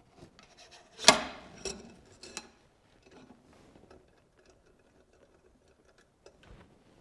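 Cleaning rod and bore brush being handled at a rifle: one sharp knock about a second in, a few lighter clicks after it, then faint handling noise.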